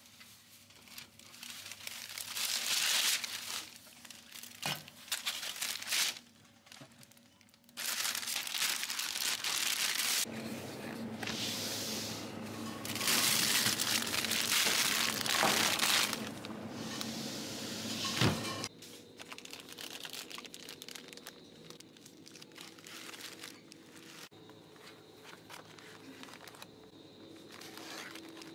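Crinkling and rustling in irregular loud bursts, as something is handled, with a sharp click about eighteen seconds in, after which it is quieter.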